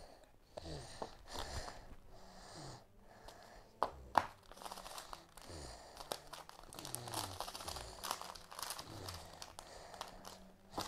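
Plastic slime packet crinkling as it is handled and cut open with scissors, with two sharp clicks a little before halfway.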